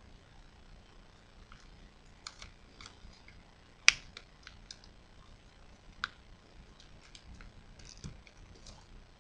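Origami paper crackling and clicking as fingers fold and crease it, in scattered small clicks, with one sharp louder click about four seconds in and another around six seconds.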